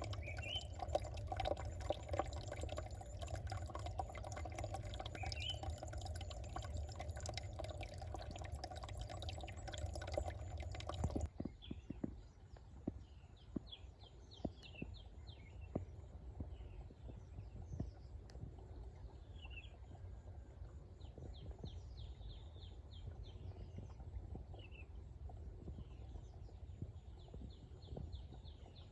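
A stream flowing steadily, with a few bird chirps over it. About eleven seconds in it cuts off suddenly to a quieter scene of small birds chirping in quick repeated trills.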